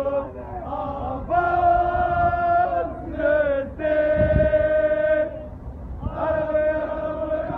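A crowd of football supporters, mostly men's voices, chanting a song in unison, with long held notes that break off and start again every second or so. A few low thumps sound beneath the singing.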